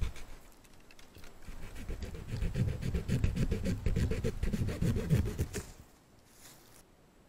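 Small hand saw cutting through a tree limb, rapid back-and-forth strokes for about five seconds, stopping suddenly near the end.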